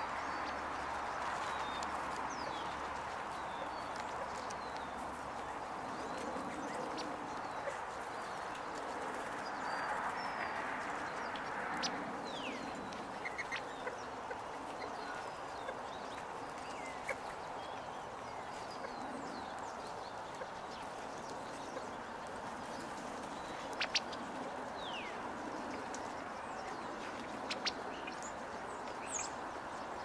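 California quail and sparrows feeding, with scattered short chirps and soft fowl-like clucking calls, a few sharp taps of beaks pecking seed off the wooden table, over a steady background rush.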